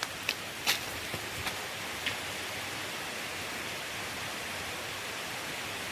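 Steady rainforest ambience, an even hiss, with a few sharp ticks in the first two seconds.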